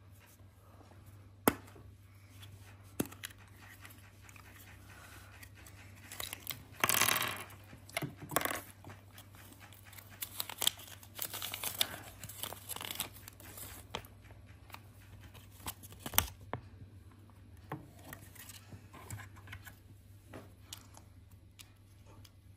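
Paper instruction leaflet from a Kinder Surprise capsule being unfolded and rustled, with sharp clicks of the plastic capsule and small plastic toy pieces. The crinkling comes in the middle, between isolated clicks near the start and toward the end.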